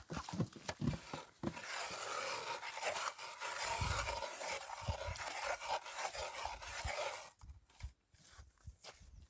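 Hand ice auger being cranked into lake ice, its blades grinding and scraping steadily, with occasional knocks; the grinding stops about seven seconds in, leaving faint scrapes.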